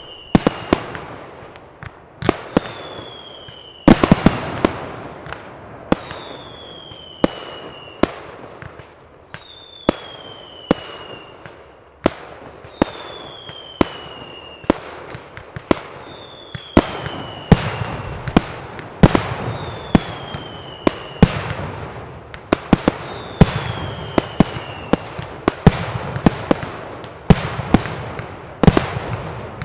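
Aerial fireworks display: shell and cake bursts banging in quick, uneven succession with crackle between them, growing denser in the second half. A high whistle falling in pitch comes back about every three seconds through most of it.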